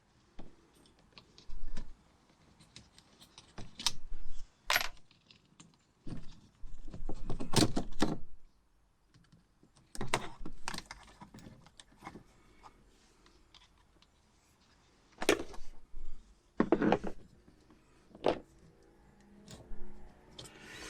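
Hand tools and small metal and plastic parts clicking, rattling and clattering in irregular bursts during work on the van's interior fittings. The loudest clatters come about five, eight, fifteen and seventeen seconds in.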